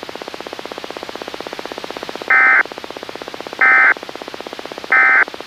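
Three short bursts of EAS/SAME digital data tones, each about a third of a second and spaced about 1.3 seconds apart, starting about two seconds in: the end-of-message code that closes a weather radio alert. A steady buzzing radio static runs beneath them.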